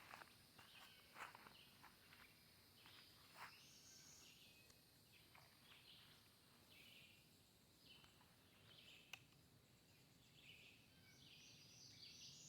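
Near silence: faint outdoor ambience with scattered, faint high-pitched wildlife chirps and a few soft clicks.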